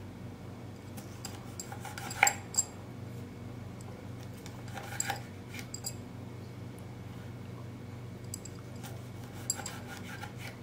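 Kitchen knife slicing a lime into small pieces on a wooden chopping board: irregular sharp knocks of the blade meeting the board, the loudest about two seconds in.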